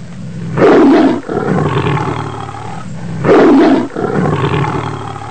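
Tiger roaring twice, about two and a half seconds apart, each roar trailing off into a lower rumble.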